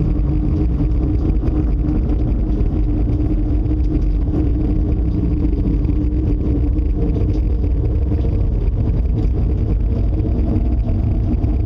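A loud, unexplained noise: a steady low rumble with a constant droning hum over it, never letting up. It is the mysterious noise the household feared meant dangerous wind.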